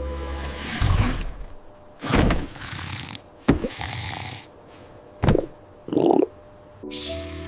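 A series of short cartoon sound effects: about five separate thuds and swishes, spaced a second or so apart.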